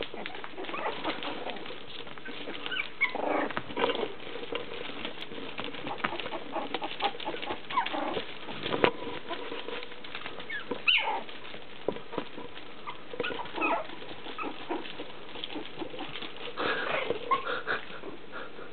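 Young puppies play-fighting, giving short, high-pitched yips and squeaks in irregular bursts, with a few sharper yelps among them.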